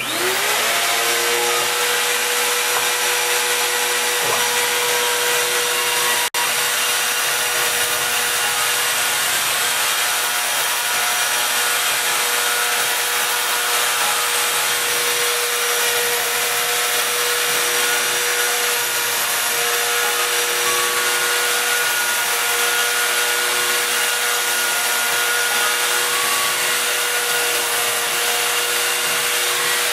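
CNC router spindle spinning up with a rising whine in the first second, then running at a steady high pitch while the bit cuts slots in a sheet, with a constant hiss of cutting under the tone.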